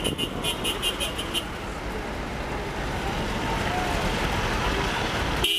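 City street traffic: a steady rush of passing vehicles with a low rumble, opened by a quick run of short, high, sharp pulses in the first second and a half.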